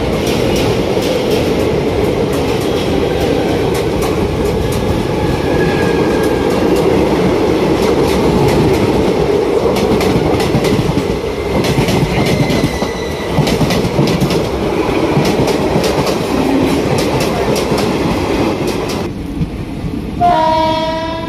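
Passenger train running at speed, its wheels clicking steadily over the rail joints over a constant rumble. A short horn blast sounds near the end.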